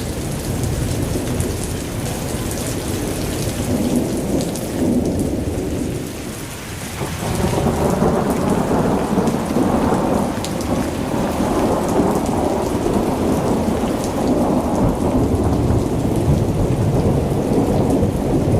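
Rain falling with a continuous low rumble of thunder, which dips briefly and then grows louder about seven seconds in.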